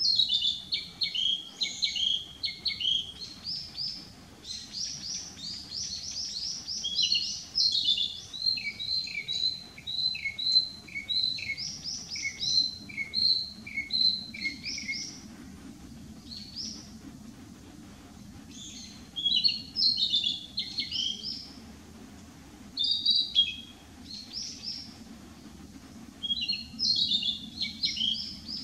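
Male narcissus flycatcher singing: rapid phrases of short, high, repeated notes. The singing runs on for about fifteen seconds, pauses, then comes back in shorter bursts.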